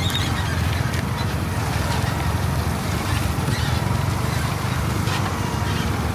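A vehicle running steadily along a road, with a low engine hum and road noise.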